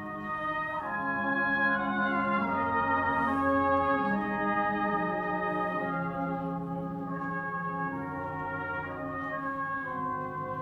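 Brass band playing a slow piece of held chords that change every second or two, swelling louder a second or so in and easing off after about five seconds.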